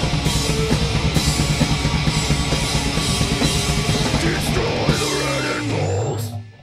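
Live powerviolence band playing fast and loud: distorted electric guitar, bass and a drum kit pounding rapidly. Near the end the song closes on a ringing low note and then stops abruptly.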